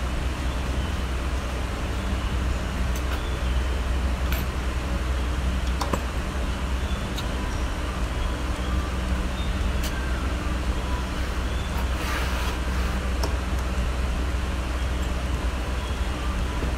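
Steady low hum with an even background hiss, broken by a few faint clicks, the first few while cage fittings are being placed.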